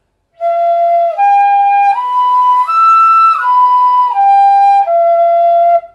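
Pífano in G (Brazilian transverse fife) playing an E-minor arpeggio slowly up and back down: E, G, B, high E, B, G, E. Each note is held clean for just under a second, a technique exercise for a clean tone.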